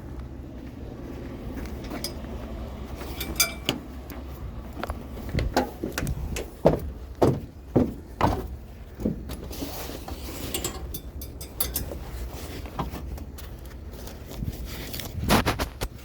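Steady low rumble of an idling vehicle engine, with a run of knocks and clatters of items being handled and moved about, the loudest in the middle and again near the end.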